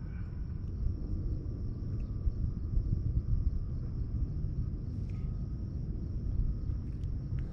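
Outdoor ambience: a steady low rumble with a steady high-pitched insect drone above it and a few faint clicks.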